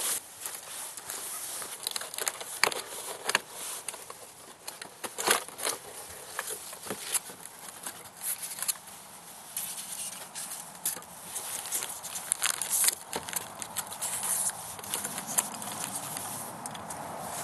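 Handling noise from a cardboard air-rifle box and the plastic wrapping inside it being opened: irregular rustling and scraping with scattered sharp knocks and crackles.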